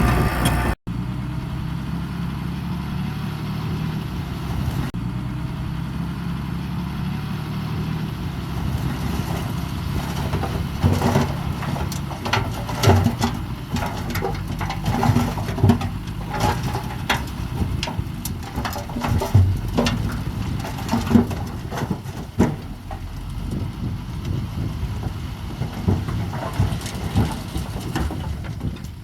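Heavy earthmoving machine's engine running steadily at a low pitch. From about ten seconds in, frequent sharp clanks and knocks come through it.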